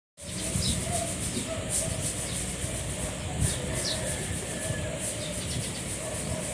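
A Pomeranian snoring while asleep, a snore about every second and a half.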